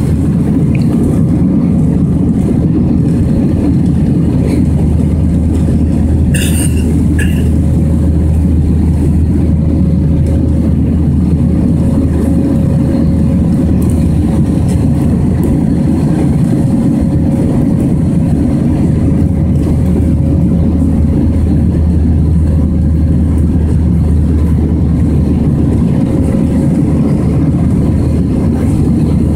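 Airbus A320 cabin noise in flight shortly after takeoff: the engines and rushing air make a loud, steady drone with a low hum and a faint steady tone above it.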